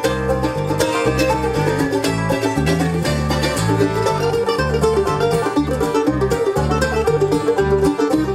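Bluegrass band playing live: banjo, mandolin, acoustic guitar and electric bass guitar, with the bass walking under fast picked notes.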